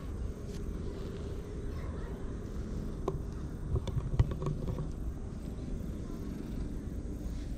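Wind rumbling on an action camera's microphone, with a short run of soft clicks and rustles between about three and four and a half seconds in.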